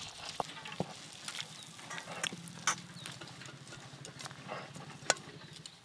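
Thick fish curry being poured and scraped out of a metal wok into a steel plate: a spoon clinks and knocks against the metal several times, with the soft slop of the gravy. A faint low hum sits under the middle part.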